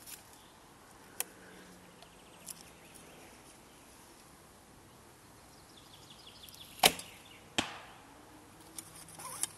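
White Feather Wingz Carbon horsebow shot with a carbon arrow. A small click comes as the arrow is nocked, then faint ticking as the bow is drawn. The string releases with a sharp snap about seven seconds in, and a fainter knock follows under a second later as the arrow strikes, probably into the rubber backstop.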